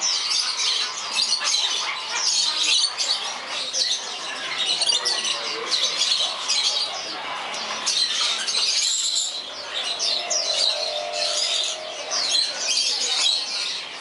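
Many caged parrots chirping and squawking at once: a dense, shrill, unbroken chatter of short calls.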